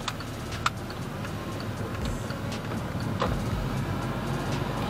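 Steady low rumble of a car driving slowly, heard from inside the cabin, with a few sharp ticks in the first second.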